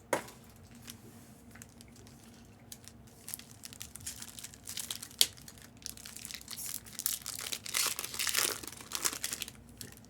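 Plastic wrapping on trading-card boxes and packs crinkling and tearing as they are opened. A sharp click right at the start, then a few quiet seconds before the crinkling starts and grows busier toward the end.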